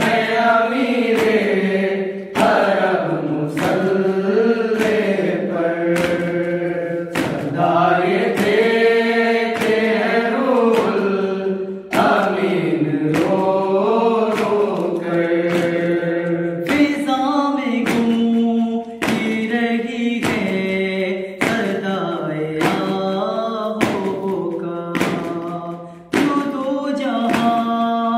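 A group of men chant a nauha, a Shia lament, in unison without instruments. Under the voices runs a steady beat of hand strikes in matam, a little over one a second.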